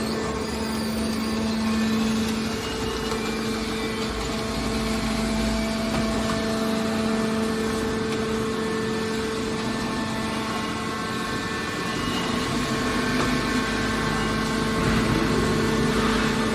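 Car baler's engine or hydraulic power unit running steadily, a constant hum that holds one pitch and grows slightly louder near the end.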